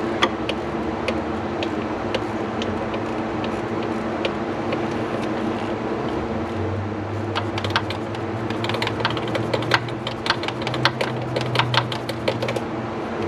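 Ratchet wrench clicking in short irregular runs, thickening in the second half, as a socket backs out the oil pressure switch. A steady shop hum sits under it, with a deeper hum joining about halfway.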